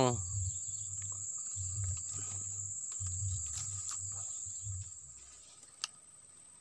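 Insects buzzing in one steady, high-pitched drone, with irregular low rumbles underneath for the first five seconds. About five seconds in the sound drops away and the drone goes on fainter, with a single sharp click near the end.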